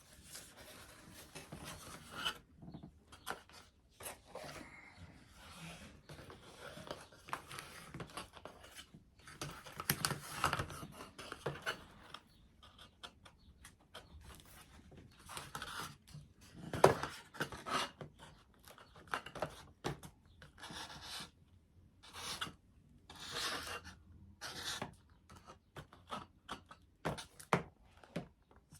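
Foam board pieces rubbing and scraping in irregular bursts as they are handled and pressed together during gluing, with one sharp knock a little past halfway through.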